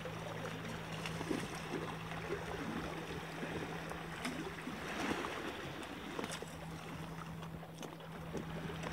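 Small waves lapping and trickling against a rocky shoreline, with a few faint clicks.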